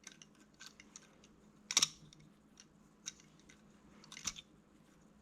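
Balisong (butterfly knife) being twirled open around the fingers, its handles and pivot rattling with light metallic clicks and ticks, with two louder clacks about two and four seconds in.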